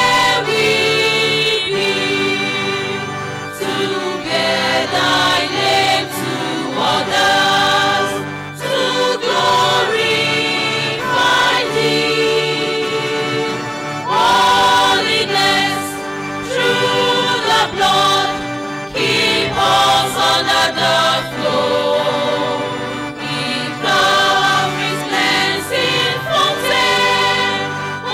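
Mixed church choir singing at microphones, in phrases with short breaks between them.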